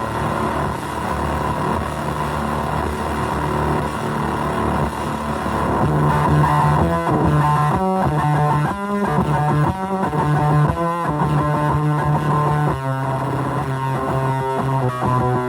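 Electric guitar played through a fuzz pedal modelled on the Devi Ever Hyperion, heavily distorted. It starts with held, fuzzed notes, then from about six seconds in plays choppy chords with short breaks between them.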